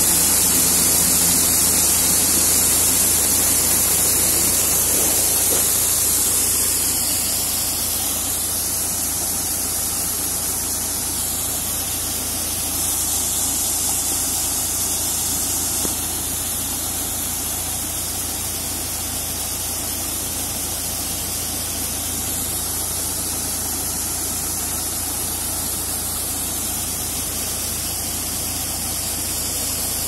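Steady hiss of threshed pigeon pea grain pouring from a Preet 849 combine harvester's unloading spout onto a heap on a tarpaulin, with the combine running underneath.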